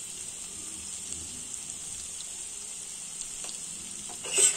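Vegetables sizzling steadily in oil in a frying pan, with a brief louder knock near the end.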